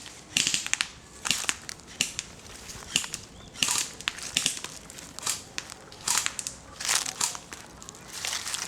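Footsteps crunching through dry, brittle vegetation, a crunch roughly every second at an uneven pace.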